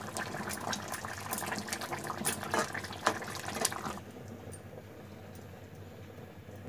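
Drumstick, potato and brinjal curry bubbling in a kadhai while a metal spoon stirs it, with many small pops and clicks. About four seconds in the sound drops to a quieter, softer simmer.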